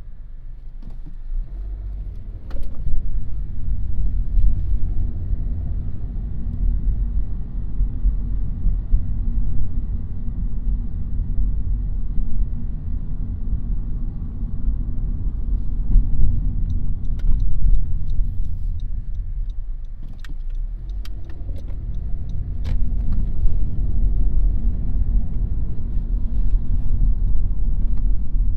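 Car driving on city streets: a steady low rumble of road and engine noise, easing off briefly about a second in and again around twenty seconds in. A series of light ticks sounds for several seconds past the middle.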